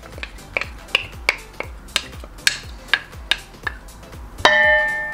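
Wooden spoon knocking and scraping against a bowl as seasoning paste is scraped out, giving irregular light clicks two to three times a second, over background music. A short ringing note sounds about four and a half seconds in.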